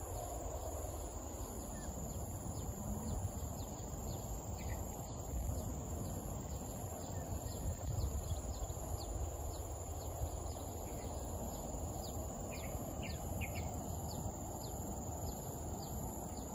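Outdoor ambience of insects: a steady high-pitched drone with a pulsing trill above it, over a low rumble. Short high chirps come and go, mostly in the second half.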